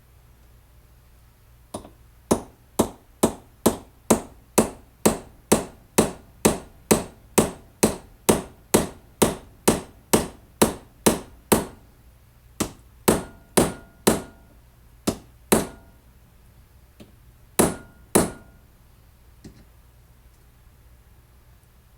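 Small hammer striking metal in a steady run of about twenty blows, roughly two a second, then a handful of slower, scattered blows. It is peening over the end of a pin so the pin cannot slide out either way.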